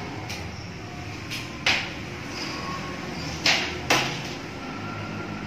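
Several short, sharp clicks and snaps from blood-draw equipment being handled at the patient's arm, the loudest three about one and a half, three and a half and four seconds in, over a steady low hum.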